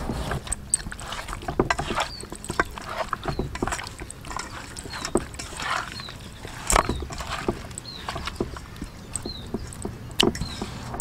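Hands kneading and turning raw pig tails in their seasoning in a stainless steel bowl: irregular wet squelches and slaps, with sharp knocks against the metal bowl.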